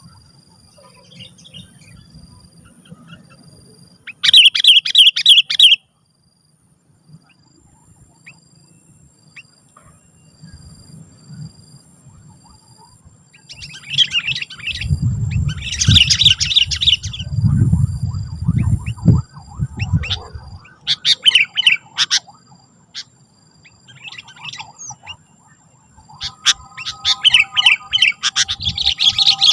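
A sooty-headed bulbul (kutilang) singing loud, rapid, chattering phrases in several separate bouts, with quieter gaps between them and a long run of song near the end. A low rumble comes in around the middle of the song.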